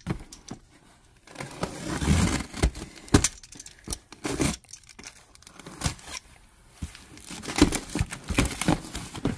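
A box being torn open and its contents handled: irregular tearing and crinkling of packaging with scattered sharp knocks and clicks.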